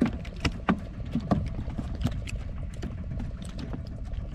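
A freshly landed queenfish thrashing on a boat's deck: a few sharp slaps and knocks, most in the first second and a half, then fainter ones, over a low steady rumble.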